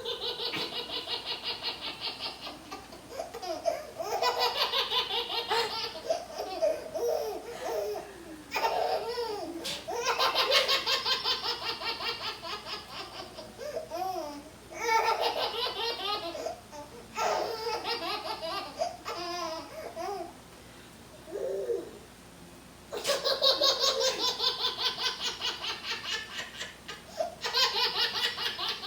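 Baby belly-laughing hysterically in repeated fits of rapid, pulsing laughter, with short pauses between the bouts.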